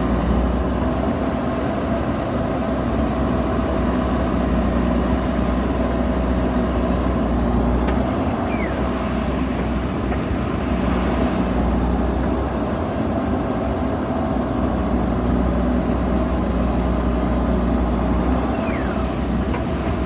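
JCB backhoe loader's diesel engine running steadily, with its pitch and level shifting a little as it works.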